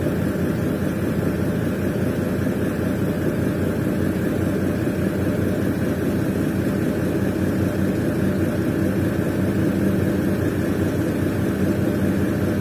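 Mercedes-Benz Actros log truck's diesel engine running steadily as the loaded truck drives toward the listener.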